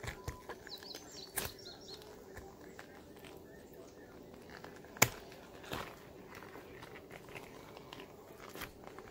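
Cabbage leaves being pulled off a head of cabbage by hand: scattered soft crinkles and small clicks, with one sharp click about five seconds in.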